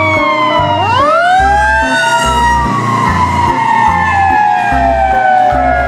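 Fire engine siren wailing: one long falling tone, joined about a second in by a second tone that sweeps up and then slowly falls, over background music with a steady low beat.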